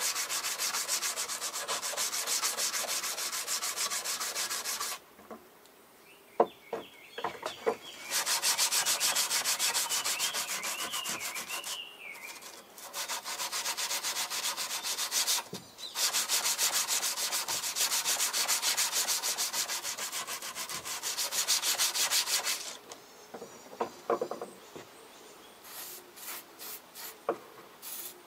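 Hand file rasping along the edge of a rusty steel garden-tool blade in long stretches of rapid strokes, with short pauses between. In the pauses and near the end there are a few light clicks and taps of metal being handled.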